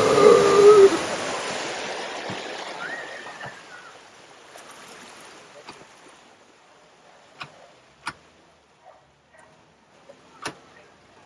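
Water splashing and rushing as a vehicle pushes through a flooded ford. The rush is loud at first and fades over about four seconds, leaving faint running water and a few sharp clicks.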